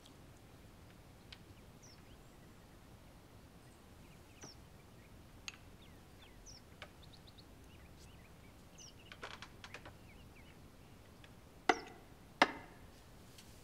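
Faint birds chirping now and then over quiet room tone, with a few light clicks about nine seconds in and two sharp clinks of tableware set down on the low table near the end.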